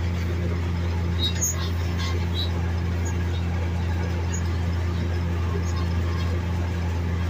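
White 2-135 tractor running steadily under load while pulling a Case IH 8350 mower-conditioner that is cutting hay, heard from inside the cab as an even, low drone.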